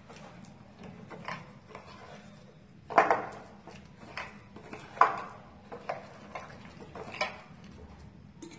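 Steel spoon stirring thick rice-flour batter in a glass bowl, scraping through the batter and knocking against the glass at irregular moments, with two louder clinks about three and five seconds in.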